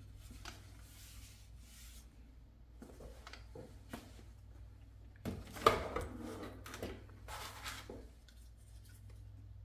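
Plastic printer parts being handled and lifted out of foam packaging: soft rubbing and rustling with scattered light taps, and a louder scuffle with a sharp knock about halfway through.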